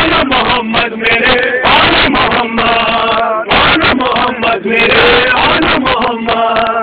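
Men's voices chanting a Shia noha (Muharram lament) together, with sharp claps of chest-beating (matam) from the crowd running through the chant.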